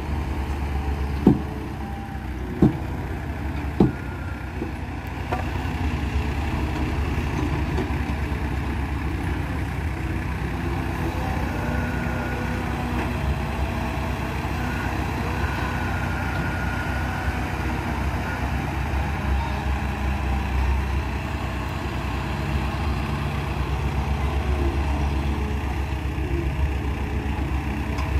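Diesel engines of earthmoving machines running steadily: a crawler bulldozer beside a tipping dump truck, then a Caterpillar 320B excavator loading dirt into a dump truck. Four sharp metallic knocks come in the first four seconds.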